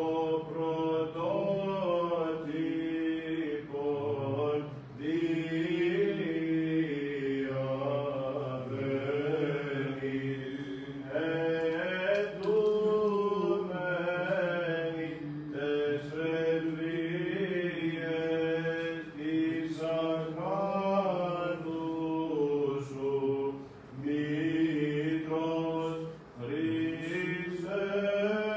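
Byzantine chant: a man's voice singing a Greek Orthodox hymn in a slow, winding melody of held notes, with only brief pauses for breath.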